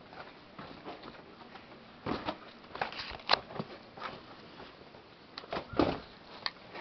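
Irregular scuffs and knocks of footsteps scrambling over rock and dry leaves.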